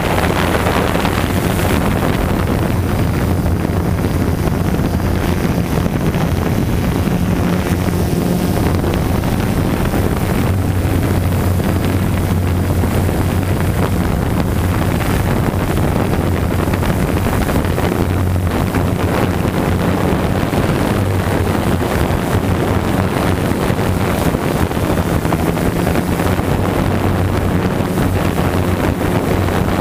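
A drone's motors and propellers humming steadily, recorded by the camera riding on it, with their pitch shifting a little now and then as it flies, under constant wind rush on the microphone.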